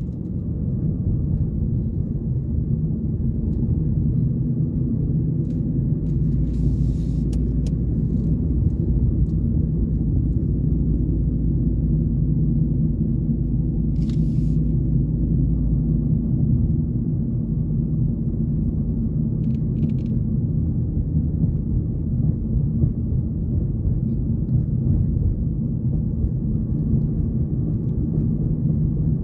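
Steady low rumble of road and engine noise heard inside a moving car's cabin, with a few faint brief hisses.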